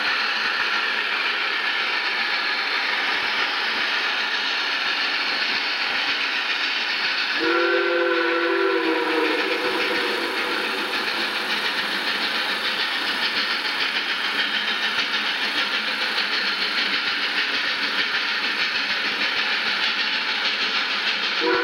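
Texas State Railroad No. 300, a 2-8-0 steam locomotive, working up a grade with a steady rush of exhaust. About seven seconds in its steam whistle blows a chord of a few notes for over a second, and it starts to blow again right at the end.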